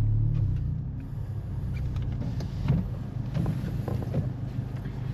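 Car engine idling, a steady low hum heard inside the cabin, with scattered small clicks and taps.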